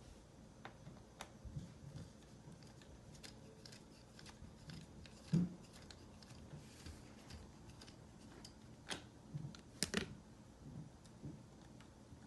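Faint, scattered clicks and taps of a screwdriver and hands working on a laptop's screen panel while its mounting screws are taken out, with a louder knock about five seconds in and a few sharper clicks near the end.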